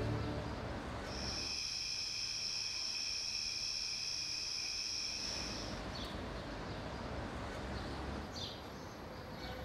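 A steady high insect trill starts about a second in and stops abruptly after about five seconds. A few short bird chirps follow over a low background hum.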